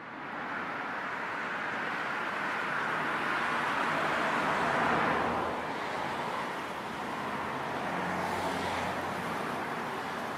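Road traffic: vehicles passing, the sound swelling to its loudest about halfway through, easing off, then rising again with another pass.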